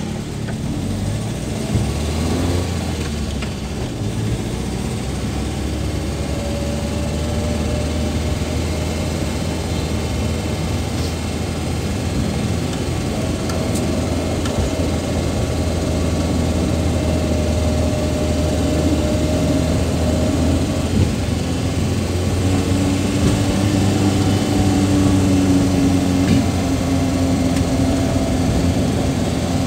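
Suzuki Carry pickup's engine running steadily while driving, heard from inside the cab, with a whine that slowly rises and falls in pitch.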